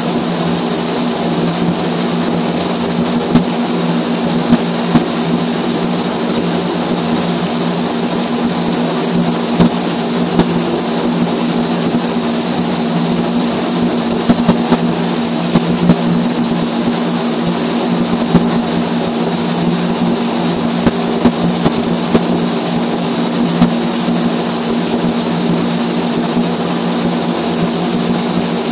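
Flux-cored arc welding overhead: the arc crackling and hissing steadily, with occasional sharp pops of spatter, over a steady low hum.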